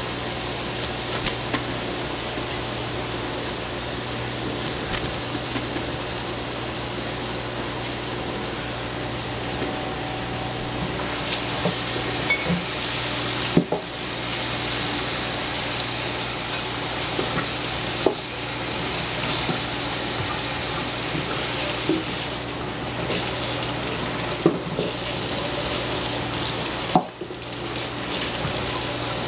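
Food sizzling steadily in a frying pan over a low steady hum, the sizzle growing louder about eleven seconds in, with a few scattered knocks.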